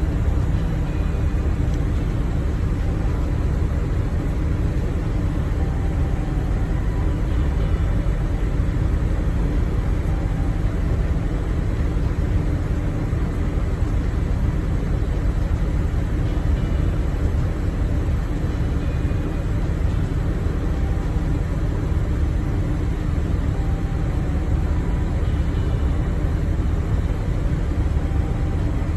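Steady low rumble of a moving road vehicle, road and engine noise running evenly with no distinct events.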